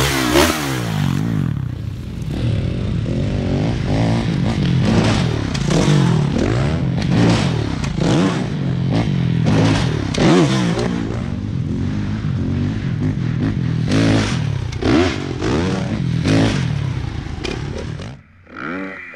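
Motocross bike engines revving hard and backing off again and again, the pitch climbing and falling with each run at the jumps, until the sound drops away near the end.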